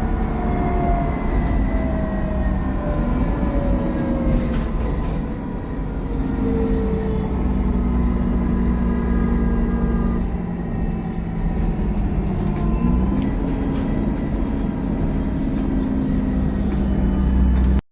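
Dennis Trident double-decker bus under way, its engine and driveline running with a whine that falls in pitch over the first several seconds as the bus slows. The engine note then holds steady and rises briefly about two-thirds of the way through.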